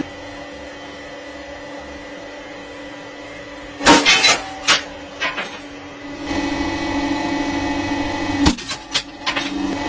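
Hydraulic press running with a steady machine hum that grows louder about six seconds in as the ram comes down. Sharp clicks and knocks come in a cluster about four seconds in and again near the end.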